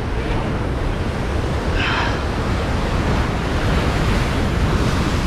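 Ocean surf breaking on a rocky shoreline, a steady heavy wash and rumble, with wind buffeting the microphone.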